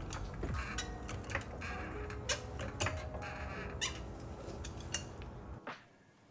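Soft background music with scattered light clicks and taps of tool work, cutting to near silence just before the end.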